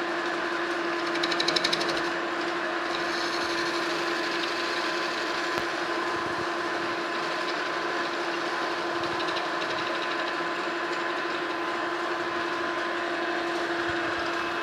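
Metal lathe running in gear with a steady hum while the tool takes a facing cut across the end of a spinning steel shaft. A brief higher-pitched rasp comes about a second in.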